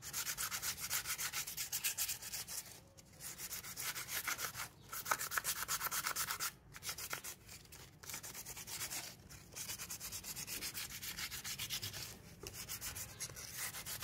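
Sandpaper rubbed by hand in quick back-and-forth strokes over a PVC pipe, smoothing its surface; a scratchy hiss in runs of a couple of seconds with short breaks between them.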